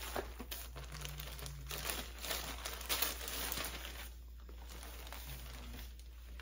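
Plastic shipping bag crinkling and rustling as a garment is pulled out of it, loudest about three seconds in, then quieter handling of the bag and fabric for the last couple of seconds.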